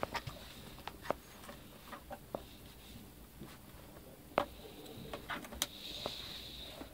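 Scattered light plastic clicks and snaps as a netbook's keyboard is pressed and seated into its case, about one a second, with a faint hiss near the end.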